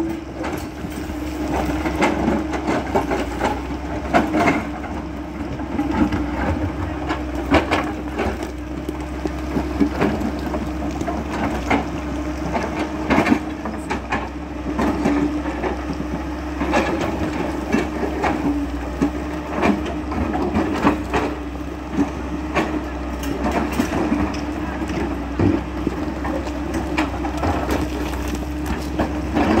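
Tracked hydraulic excavator's diesel engine running with a steady hum while its bucket digs and pries at rock, with frequent knocks, cracks and clattering of stones throughout.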